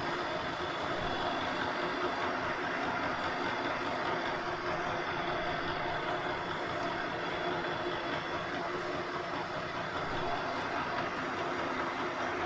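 Takisawa 14x40 metal lathe running with no cut, its spindle and gear train, including a 3D-printed plastic change gear, turning the lead screw. A steady mechanical hum with a few steady tones, unchanging throughout.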